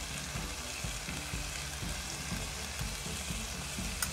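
Chopped onion, capsicum and spring onion with garlic and ginger frying in a little oil in a non-stick kadhai, a steady sizzle, with a light tap near the end.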